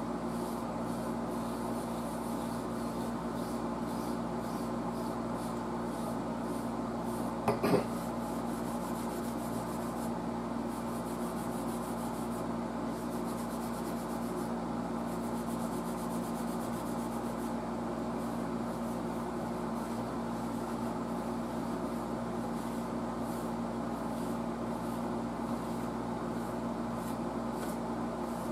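Steel wool scrubbing the metal dial plates of a Crosley 52 radio's front panel, a steady scratchy rubbing that buffs the corrosion off. A brief louder knock comes about seven and a half seconds in.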